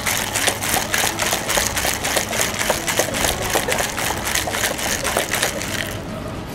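Ice rattling hard inside a cocktail shaker as a drink is shaken, in a fast, even rhythm of about five strokes a second. The shaking stops about six seconds in, when the shaker is opened for straining.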